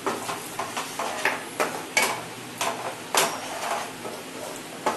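Wooden spatula scraping and knocking against a non-stick kadai while stirring a thick onion-tomato paste cooking in butter. It comes as irregular strokes, about three a second.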